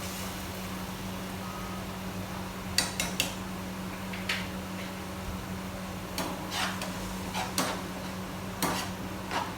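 Metal kitchen utensils and pots clinking and clattering in short, irregular knocks: a quick cluster about three seconds in, then more through the second half. A steady low hum runs underneath.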